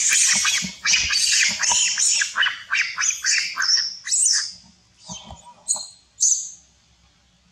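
Long-tailed macaques screaming during a fight: a run of loud, rapid, shrill screeches for about four and a half seconds, then a few shorter squeals that stop about two-thirds of the way through.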